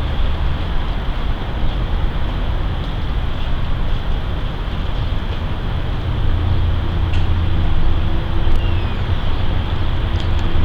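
A steady low rumble of outdoor background noise, with a few faint clicks.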